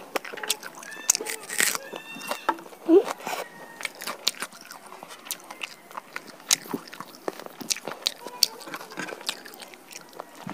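Close-miked chewing and biting of roasted chicken: many small wet clicks and smacks of the mouth, with some crunching of the skin.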